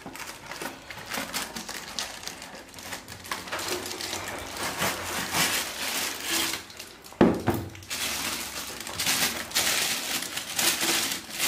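A cardboard box opened by hand and a pop filter pulled out of it in a plastic bag: irregular rustling and crinkling of cardboard and plastic wrap, with one sharp knock about seven seconds in.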